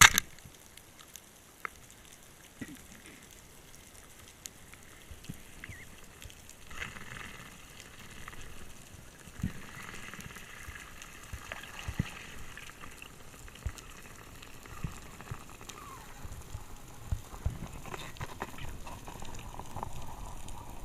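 Underwater crackle of many small clicks and pops. There is one sharp knock at the very start, and more scattered low knocks and a rising hiss toward the end.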